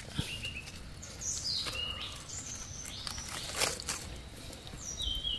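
Short high bird chirps come several times over a quiet forest background, with faint rustles and crackles of dry leaf litter and twigs as mushrooms are cut and handled.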